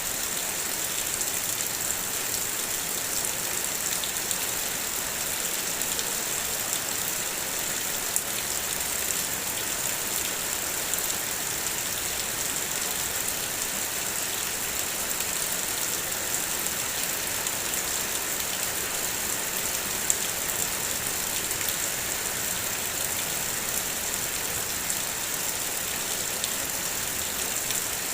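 Steady rain falling, an even hiss of many drops, with a couple of sharper taps from single drops about 8 and 20 seconds in.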